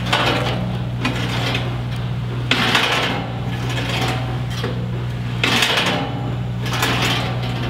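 Evolution 380 cold-cut chop saw being swung back and forth on its pivoting lazy Susan ball-bearing mount, giving repeated rattling, rolling scrapes about every second and a half. A steady low hum runs underneath.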